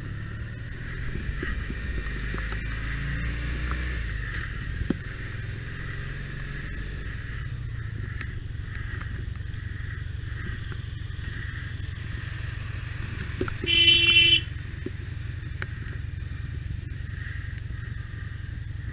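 Motorcycle engine running steadily on the road, with road and wind noise. About fourteen seconds in, a vehicle horn honks once, briefly and loudly.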